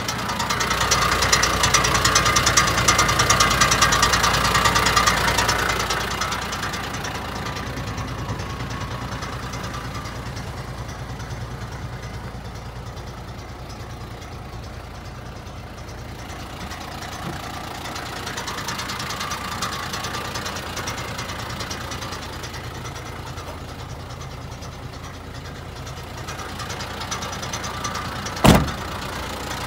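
Isuzu Elf light truck's engine idling steadily, louder for the first few seconds. A single sharp knock comes near the end.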